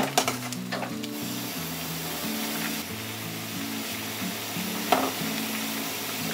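Oyster ramen broth boiling hard in a pot, a steady bubbling hiss. A utensil clicks against the pot a few times in the first second as it moves the noodles, and once more near five seconds. Soft background music underneath.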